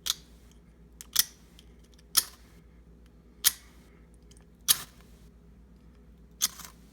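Fire-starter rod on a paracord survival bracelet struck six times with a metal scraper to throw sparks, each strike a short, sharp scrape about a second apart.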